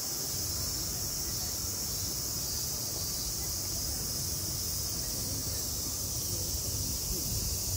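Steady outdoor background dominated by a continuous high-pitched insect drone, over a low rumbling hum.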